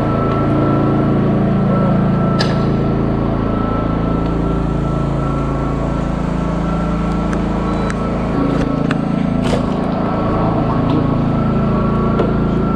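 A motor aboard a bowfishing boat runs steadily: a low, even drone with a thin steady whine above it. Two sharp clicks stand out, one about two seconds in and one near ten seconds.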